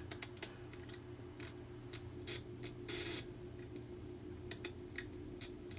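Faint scattered clicks and a short scuffing scrape, about three seconds in, of a man putting down and picking up hand tools while working on a tractor wheel, over a low steady hum.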